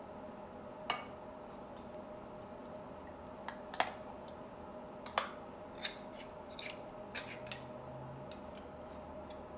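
Irregular sharp metal clicks and scrapes. A spatula knocks against a steel can and mixing bowl about a second in. Then a hand-held can opener is clamped onto a can and cranked, in short clicking strokes.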